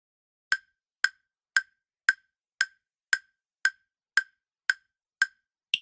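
Countdown-timer tick sound effect: eleven sharp ticks, evenly spaced at about two a second, the last one higher in pitch.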